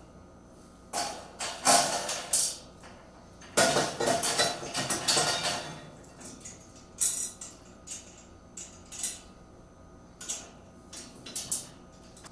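Steel bolts, washers, nuts and hand tools clinking and clattering against a steel carrier frame as it is bolted together. The knocks come irregularly, with a longer spell of rattling clatter a few seconds in.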